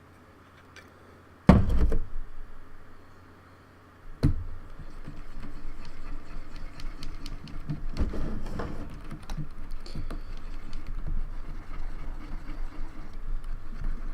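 A loud knock about a second and a half in, and another a few seconds later. Then continuous rubbing and scraping with many small clicks as keyboard parts are scrubbed with a cotton swab and isopropyl alcohol.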